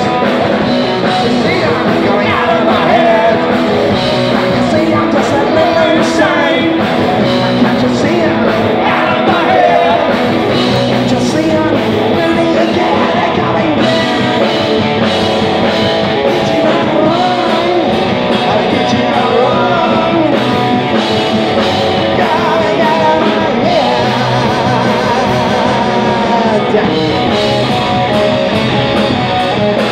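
Live punk rock band playing loudly: electric bass, guitar and drums with a singer on the microphone.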